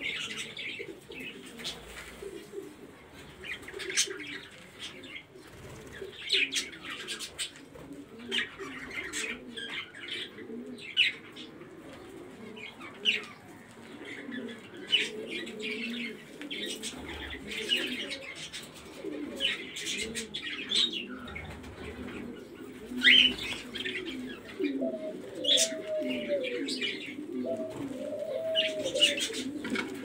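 A flock of pigeons and doves cooing continuously, with frequent short, sharp higher sounds over the coos. Near the end, clearer arched coos repeat.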